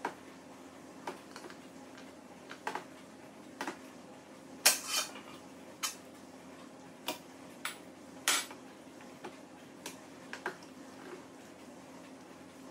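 A spatula scraping and tapping thick chilled spread out of a plastic bowl into a stainless steel Thermomix mixing bowl. Scattered clicks and knocks, with two longer scrapes about five and eight seconds in.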